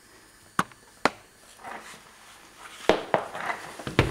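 About five sharp knocks spaced irregularly, with faint soft rustling between them.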